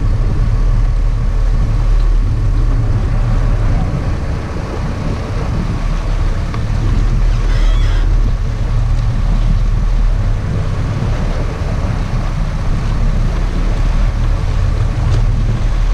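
Sport-fishing boat's engines running with a steady low drone, mixed with wind and rushing water noise.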